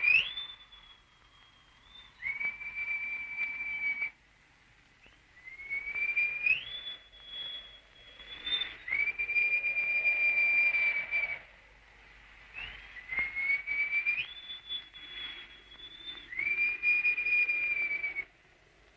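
A clear whistled tune in long held notes, the same phrase three times: a note that slides up to a higher held note, then a long lower held note, with short pauses between phrases.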